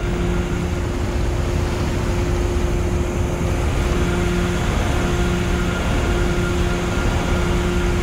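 A trailing suction hopper dredger's deck machinery running as a suction arm is swung out: a loud, steady drone with a constant hum, and a lower hum that cuts in and out through the second half.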